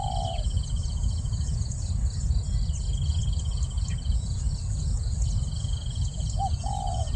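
Spotted dove cooing: one phrase ends just after the start and another comes about 6.5 s in, two short low notes followed by a longer purring note. A steady, pulsing insect trill sounds higher up, stopping briefly now and then, over a constant low rumble.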